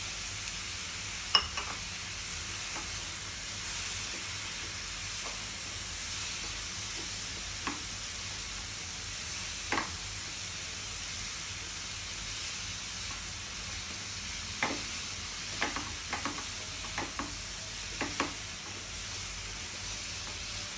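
Green chickpeas and tomato-onion masala sizzling steadily in a frying pan as a wooden spatula stirs them. The spatula gives occasional sharp knocks against the pan, the loudest about a second in and several more near the end.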